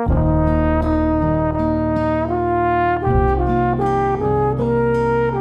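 Brass instruments playing slow, held chords over a strong bass line, the chords changing every second or so.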